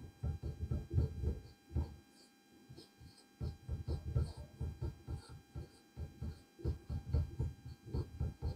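Marker pen writing on a whiteboard: a quick, uneven run of low taps and scrapes from the strokes, pausing for about a second and a half around two seconds in. A faint steady electrical hum lies underneath.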